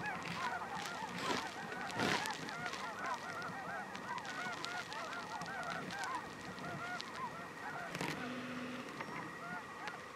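Flock of snow geese calling, a dense chorus of many short, high honks overlapping, thinning out near the end.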